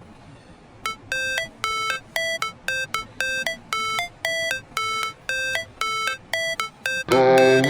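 Background music: an electronic intro of short, beeping synth notes, about two a second, alternating between two pitches. A fuller, louder music track comes in near the end.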